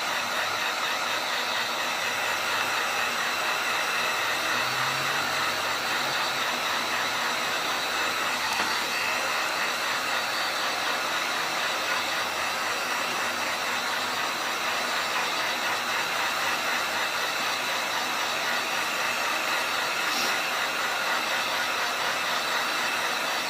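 Heat gun blowing hot air steadily onto a Galaxy S5's screen to soften the adhesive under the glass and LCD: an even rushing hiss with a faint hum.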